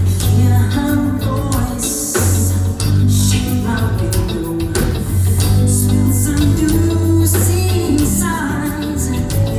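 Amplified pop music played over a theatre's sound system during a live show: a singer over a steady bass line and drum beat, heard from the audience.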